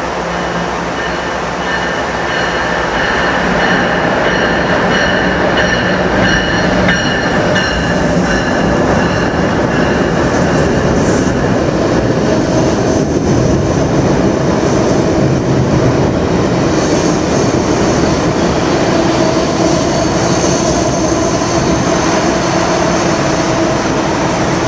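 Amtrak Northeast Regional passenger train rolling along a station platform, a loud, steady rumble of wheels and cars on the rails. High squealing tones ride over it through roughly the first half, then fade, and lower tones take over later.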